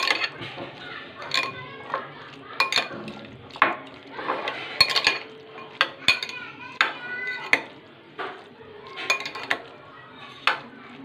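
Metal spoon stirring a wet mix of boiled peas and onion in a glass bowl, clinking against the glass again and again at irregular intervals, some strikes leaving a brief ring.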